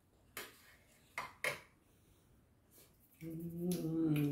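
Metal chopsticks and spoon clinking against a stainless steel compartment tray, three sharp clicks in the first second and a half. Near the end a voice hums a held note for about a second and a half.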